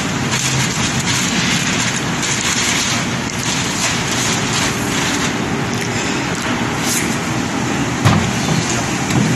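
Steady road-vehicle noise, an even rumble and hiss, with a short knock about eight seconds in.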